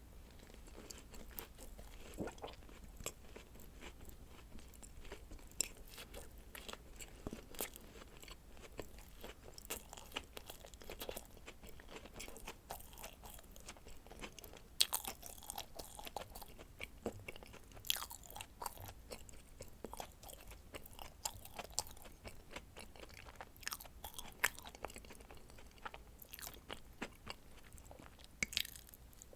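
Close-miked eating of dacquoise cookies: irregular crisp crunching bites and wet chewing, with sharp crackles scattered throughout.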